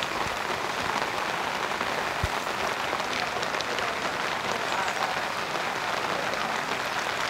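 Steady rain falling, an even hiss of drops with faint ticks of single drops scattered through it.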